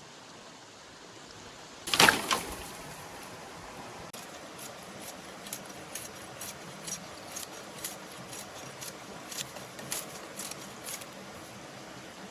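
Stream running steadily, with a loud clatter about two seconds in, then irregular small clicks and knocks.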